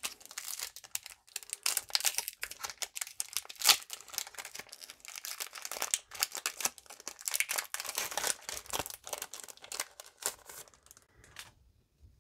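Foil wrapper of a Pokémon TCG Fusion Strike booster pack crinkling and tearing as it is ripped open by hand, with one louder crackle about four seconds in. The crinkling stops about eleven seconds in.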